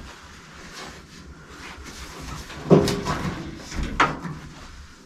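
Knocks and clatter from a steel body repair panel being handled and worked into place, with two louder sharp knocks, one nearly three seconds in and one about four seconds in.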